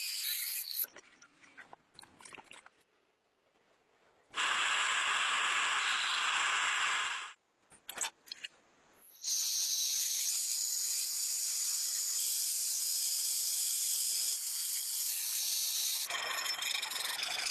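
Several stretches of steady, high-pitched hissing noise, each starting and stopping abruptly, with a few short clicks and near-quiet gaps between them.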